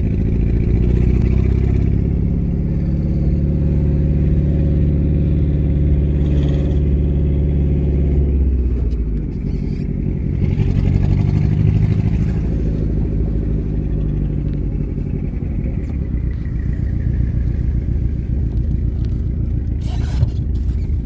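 Turbocharged 2.4-litre four-cylinder engine of a 2005 Dodge SRT-4 running, its revs held, then falling away about nine seconds in and rising again soon after. It runs with one bad lifter, which the owner says is its only fault.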